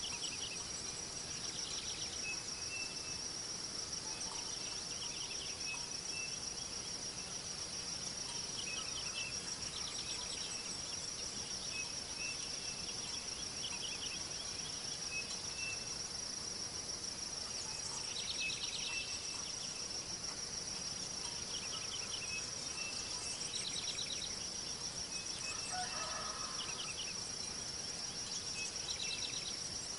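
Steady high-pitched insect chorus, with short trilled chirps repeating every few seconds over it and a brief lower call about 26 seconds in.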